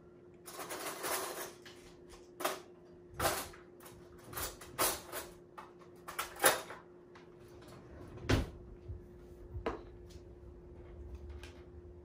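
Kitchen utensil drawer being rummaged through: a string of separate metal clatters and knocks as utensils are shifted, with a heavier, deeper thump about eight seconds in. A faint steady hum runs underneath.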